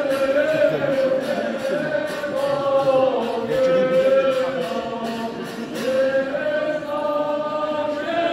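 Choir singing an Armenian church hymn in chant style: one slow melodic line of long held notes with gentle glides between them.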